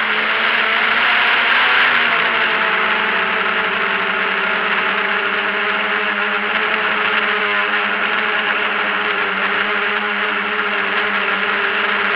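Multirotor drone's motors and propellers buzzing steadily, heard from the camera on board, with the pitch wavering briefly a little past the middle.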